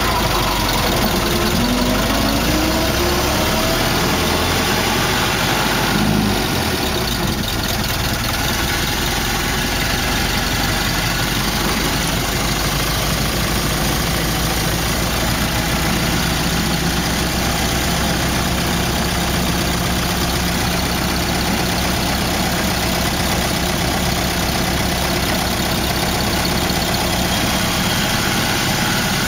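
1914 Ford Model T's four-cylinder flathead engine running as the car is driven. Its pitch climbs over the first few seconds, shifts about six seconds in, then holds steady.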